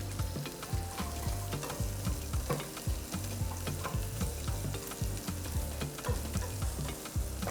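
Vegetables, carrots among them, sizzling as they are sautéed in a pan, with a utensil stirring them and clicking against the pan many times.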